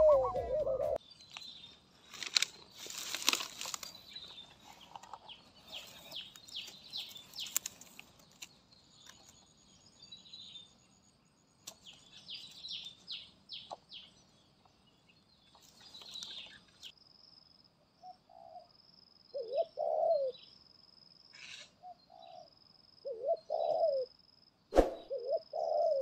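Spotted dove cooing in short low phrases through the last third, with a steady thin high tone behind them. Before that, scattered high bird chirps and a few sharp rustles or wing flaps.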